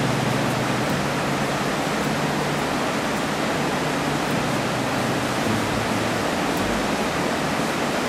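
River whitewater rushing over rocks in a small rapid: a steady, even rush of water.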